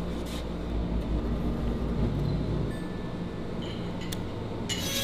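Steady low machinery rumble and hum. Near the end a brighter, busier sound with several high tones cuts in suddenly.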